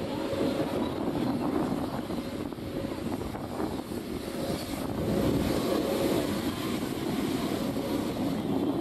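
Distant helicopters flying in formation: a steady rumble of rotors and engines with a faint steady tone, growing a little louder about halfway through.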